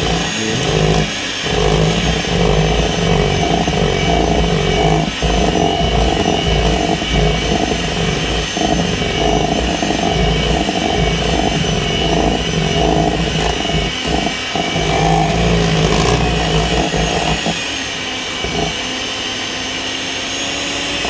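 Electric hand mixer running, its beaters whirring through cupcake batter in a stainless steel bowl, with a steady motor whine; it runs a little quieter for the last few seconds.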